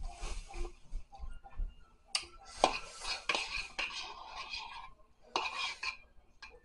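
Metal fork scraping and clinking against a ceramic bowl as saucy instant noodles are stirred and twirled, in three bouts. It starts with a slurp of noodles.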